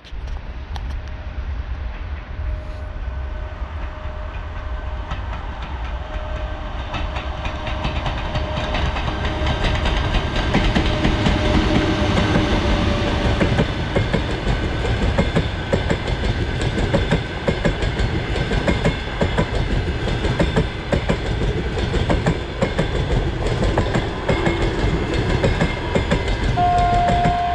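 EP1M electric locomotive and its passenger coaches approaching and rolling past, growing louder over the first ten seconds or so. The wheels click steadily over the rail joints as the coaches go by.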